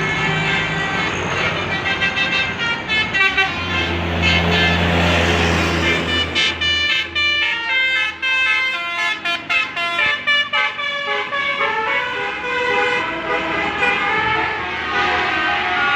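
Indonesian bus 'telolet' musical horn playing quick melodic runs of short stepped notes, one after another, with a bus engine's low drone loud for a couple of seconds a few seconds in.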